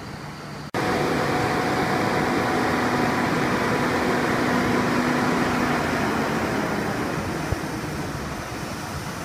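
Truck-mounted Komptech wood chipper running with a steady, loud mechanical drone and a faint whine. The level jumps up sharply about a second in and eases off gradually toward the end.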